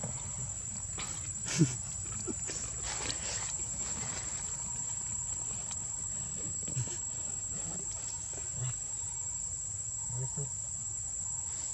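Steady high-pitched drone of insects, with a few soft ticks and knocks; a sharp click about a second and a half in is the loudest sound.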